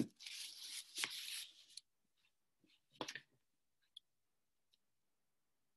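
Faint rustling for about a second and a half with a soft click in it, a brief rustle about three seconds in, then near silence.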